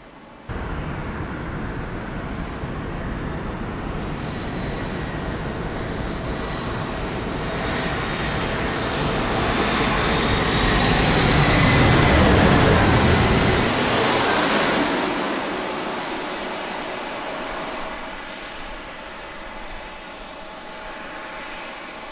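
Twin-engine jet airliner passing low overhead: the engine noise builds to a peak, a high whine falls in pitch as it goes by, and the noise then fades.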